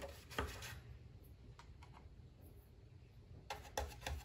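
Paintbrush stroking clear varnish onto the bare wood inside a model boat hull: faint brushing and scraping, with a light knock about half a second in and a quick run of small knocks near the end.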